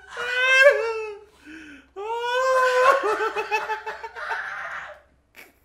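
A man laughing hard in high-pitched, wailing bursts: one about a second long, then a longer one from about two seconds in that breaks into rapid pulses before dying away near the end.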